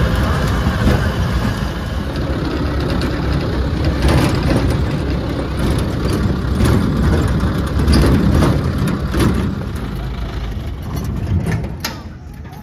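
Safari bus engine running as it drives along a rough forest track, heard from on board, with heavy rumble and scattered knocks and rattles. The noise falls away near the end as it slows.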